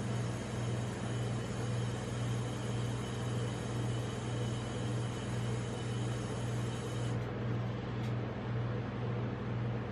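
Steady low hum of a rolled-ice-cream machine's refrigeration unit, its compressor and fan running under the cold steel plate.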